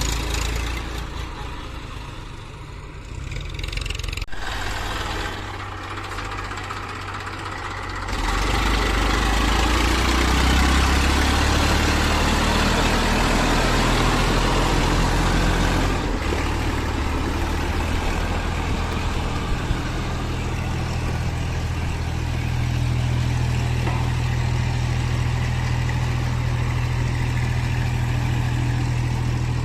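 Heavy diesel machinery engine running steadily, becoming louder and deeper about eight seconds in.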